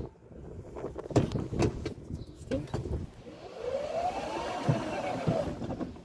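Club Car Precedent golf cart pulling off and stopping: a few clunks in the first couple of seconds, then the motor whine rising in pitch and falling back over about two seconds as the cart speeds up and slows.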